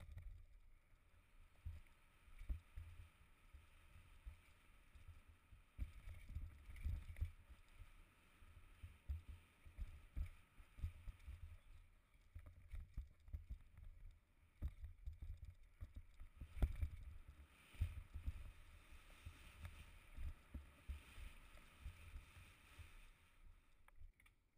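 Mountain bike descending a rough forest singletrack, heard through the rider's action camera: a low rumble with irregular knocks and jolts as the bike runs over roots and bumps.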